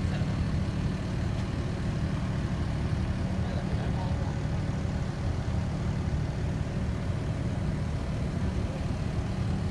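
Steady low hum of an idling vehicle engine, with faint distant voices.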